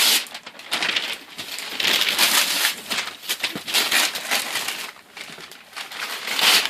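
Gift wrapping being torn open and crumpled by hand: irregular bursts of paper rustling and crinkling, with a lull about five seconds in.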